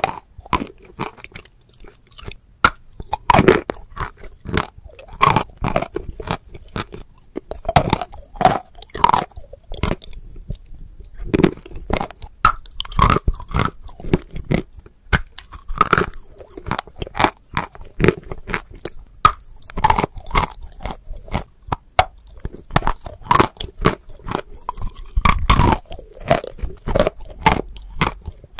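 Close-miked ASMR crunching and chewing of edible chalk, a quick run of sharp, brittle crunches with a short pause about ten seconds in.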